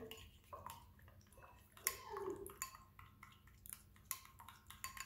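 Plastic spoon stirring a runny glue mixture in a bowl, giving irregular wet clicks and squelches; the mixture has not set into slime.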